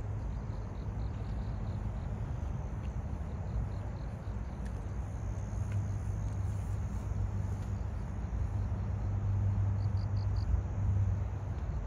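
Crickets chirping in short, evenly repeated pulses, with a brighter burst of three chirps near the end, over a steady low hum of distant traffic.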